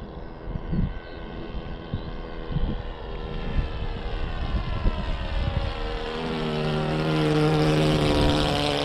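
Radio-controlled Tiger Moth's .70 four-stroke nitro engine running steadily in flight and sounding good, getting louder as the plane comes close overhead in the second half. Wind buffets the microphone in the first few seconds.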